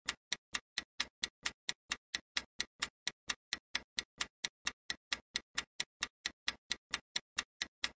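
Countdown-timer ticking sound effect: even, sharp clock-like ticks at about four a second, marking the time left to answer a quiz question.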